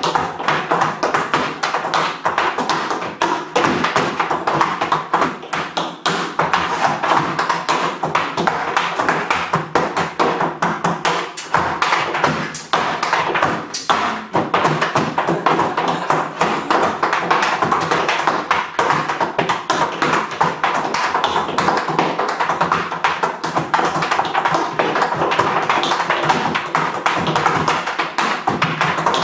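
Tap shoes striking a wooden tap board in a fast, continuous stream of sharp taps, with louder accented strikes throughout: solo tap dancing.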